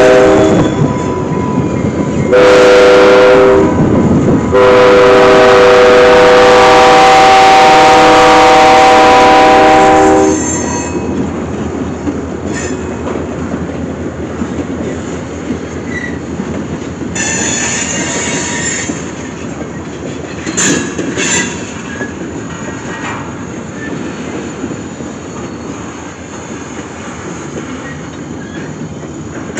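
Diesel freight locomotive's air horn sounding a chord for a grade crossing: one blast ending about a second in, a second short blast, then a long blast that stops about ten seconds in. After that the locomotives and tank cars roll by with a steady rumble, a few seconds of high wheel squeal and sharp clicks of wheels over rail joints.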